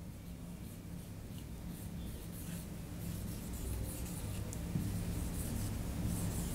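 Marker pen writing on a whiteboard: short, faint scratchy strokes as letters are drawn, over a low steady room hum.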